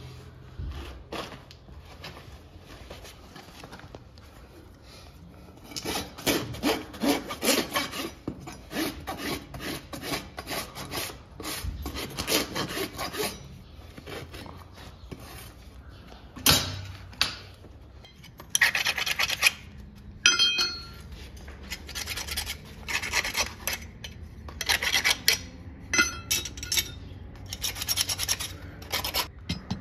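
Farrier's driving hammer striking horseshoe nails through a steel shoe into the hoof wall, in bursts of quick strikes separated by pauses. One blow about twenty seconds in rings with a short metallic tone.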